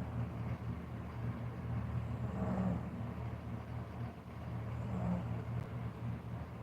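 A sleeping person snoring softly, two breaths about two and a half seconds apart, over a steady low hum.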